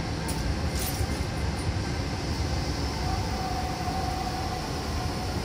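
Okinawa monorail (Yui Rail) train running along its concrete guideway on rubber tyres, heard from inside the car: a steady low rumble with rushing air noise. A couple of faint clicks come about a second in.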